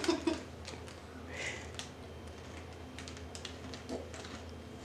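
Faint scattered small clicks and light crackles, like snacks and their packets being handled, over a low steady hum.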